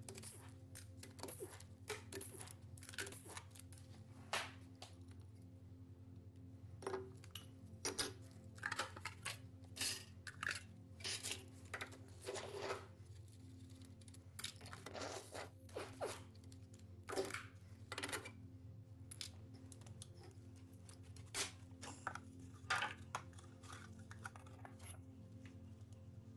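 Irregular light metal clicks and clinks of hand tools and engine parts being handled during engine disassembly, over a faint steady low hum.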